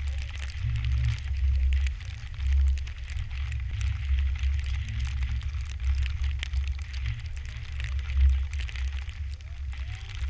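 Wind buffeting the microphone: a deep, uneven rumble that gusts up and down, with light scattered crackling on top.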